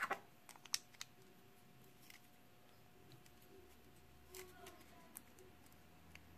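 Sparse small clicks and taps of hard parts, the wood, acrylic and metal pieces of a homemade fidget spinner, being handled and pressed together by hand, the sharpest clicks about a second in.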